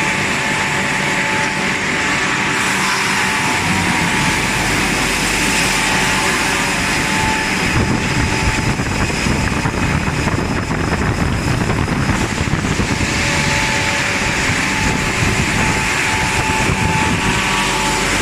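Billet induction forging line running: a steady, loud machine noise with a constant high whine. It grows busier and rattling for a few seconds around the middle.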